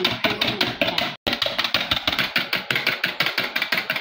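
Wire whisk beating eggs in a stainless steel saucepan: fast rhythmic clatter of the wires against the metal pan, about seven strokes a second, cutting out for a moment about a second in.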